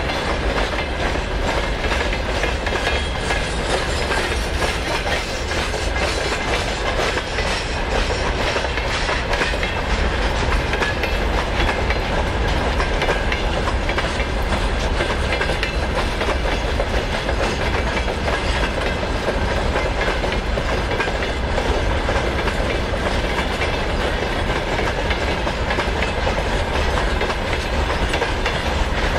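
Freight train of open gondola cars rolling past, the steel wheels clattering steadily on the rails in a dense stream of clicks.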